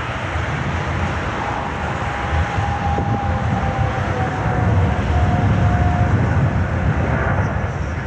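Flying model of a Star Wars Imperial shuttle passing overhead: a faint motor whine sinks slightly in pitch as it goes by, over a heavy low rumble that grows louder about five seconds in.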